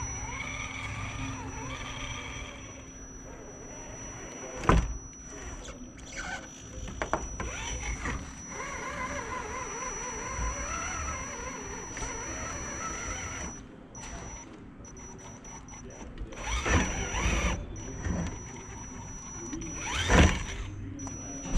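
Axial SCX10 RC crawler's electric motor and geared drivetrain whining, its pitch rising and falling with the throttle as it crawls over the course. A sharp knock comes about five seconds in, and louder clattering knocks near the end, the loudest just before it finishes, as the truck's tyres and chassis drop onto the wooden ledges.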